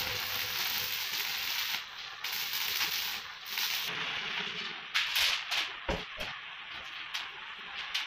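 Stick (arc) welding: the electrode crackles and sizzles in short runs as flat steel strips are tack-welded to a steel-tube chair frame. The arc pauses briefly twice, and from about five seconds in it comes in sharper, louder spurts.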